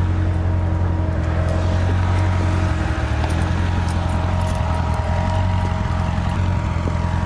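2008 Corvette C6 Z06's 7.0-litre LS7 V8 running steadily at an even low pitch.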